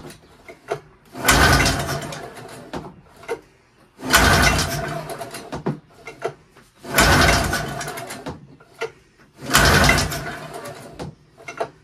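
Pull-starting the Ski-Doo Formula MX's Rotax two-cylinder two-stroke engine: four hard pulls on the recoil starter, about three seconds apart, each a loud burst of rope and cranking engine that fades away. The engine never fires; the owner later finds the spark plug dry, with no fuel reaching the cylinder.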